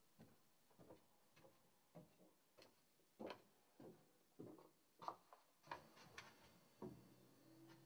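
Faint, slow footsteps climbing carpeted stairs, a soft knock about every half-second or so.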